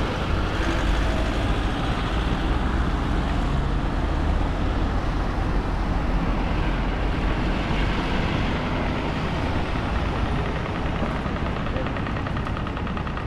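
Street traffic noise: a steady low rumble of passing motor vehicles, easing off about ten seconds in.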